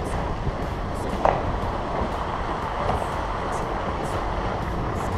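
Toyota 4Runner driving slowly along a muddy, puddled trail, heard from its hood: a steady rumble of engine, tyres and wind, with one sharp knock a little over a second in.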